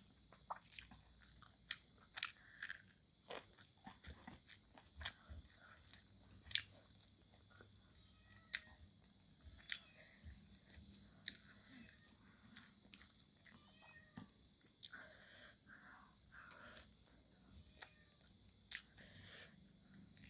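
Quiet, irregular chewing and crunching of fried pork close to the microphone, with small clicks and smacks. Crickets chirr steadily in the background.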